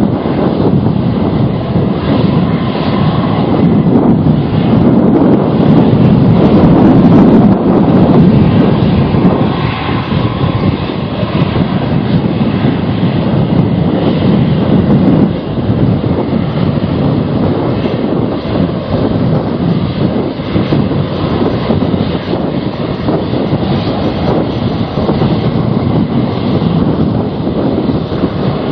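Airliner's engines rumbling past, swelling to their loudest about a quarter of the way in and easing off after about halfway, with strong gusting wind buffeting the microphone.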